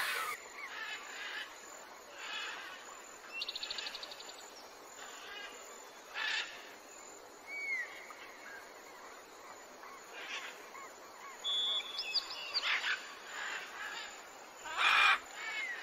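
Small birds chirping and calling: short high chirps and gliding whistles, with a quick rattling trill about three and a half seconds in. A few short noisy bursts come between them, the loudest near the end.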